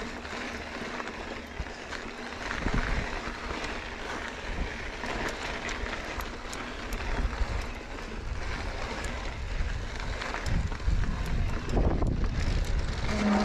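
Wind buffeting the microphone over the noise of mountain-bike tyres rolling on a rocky dirt trail, with scattered small clicks and rattles from the bike. The noise grows louder after about ten seconds.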